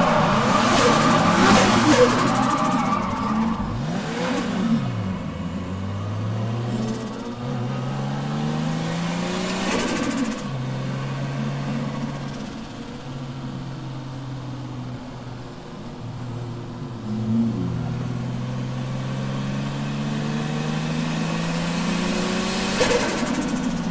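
Toyota JZX100 Tourer V's 1JZ-GTE turbocharged straight-six heard from inside the cabin, revving hard with tyre squeal in the first few seconds of a drift. The engine then settles to lower revs, its note rising and falling with throttle and gear changes, broken by a few short sharp bursts of noise.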